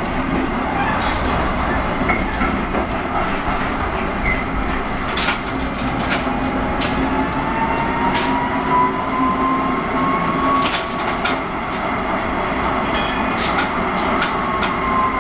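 An old tram heard from the passenger cabin while running: a steady rolling rumble with scattered sharp clicks of the wheels and rail, and a thin whine that rises slowly about midway and fades.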